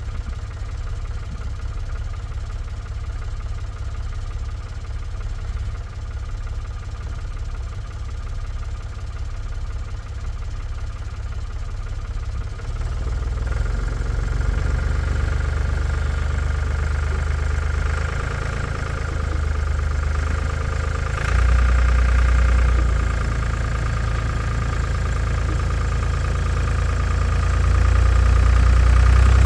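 A vehicle engine running with a steady low rumble, then working harder from about 13 seconds in, with further rises in loudness around 21 and 28 seconds in.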